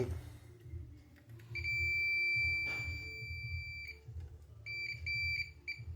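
Digital multimeter's continuity beeper sounding as the probes touch points on an air-conditioner control board. It gives one steady high beep of about two seconds, then three short beeps near the end. The beep signals a short circuit in that area of the board.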